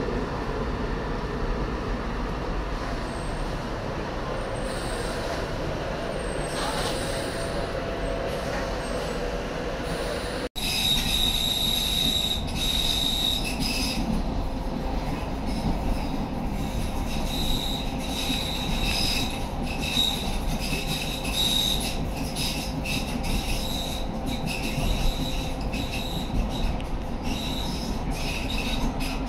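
A Tyne and Wear Metro train running into an underground platform. About a third of the way in, a cut brings the steady rumble of riding on board a moving Metro train, its wheels squealing on and off in a high pitch against the rails.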